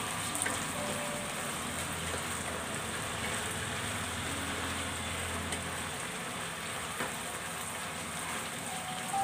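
Ground pork frying in tomato sauce in a frying pan, a steady sizzling hiss as it cooks down.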